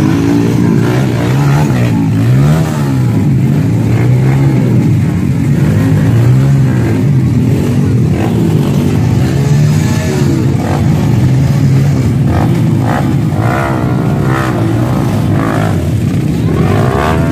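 Trail motorcycle engines revving up and down over and over, the bikes labouring under load as they struggle for grip in mud on a steep muddy climb.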